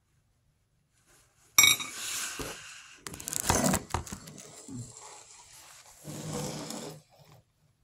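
Handling noise: a sudden knock, then rubbing, scraping and sharp knocks as the recording device is picked up and moved about, with light clinks among them.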